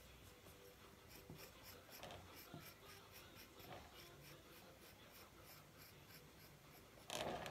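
Faint, quick scraping strokes of a wooden modelling tool smoothing soft clay over the joint between a vase's neck and body, several light strokes a second, with a brief louder rustle near the end.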